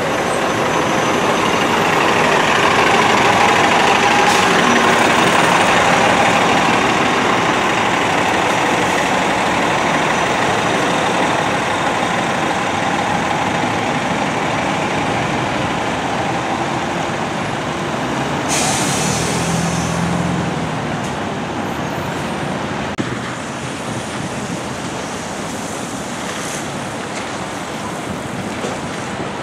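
Buses and traffic passing on a rain-wet street: the engines running and the tyres swishing on the wet road, loudest in the first few seconds as a coach bus goes by close. About two-thirds of the way in there is a short, sharp hiss.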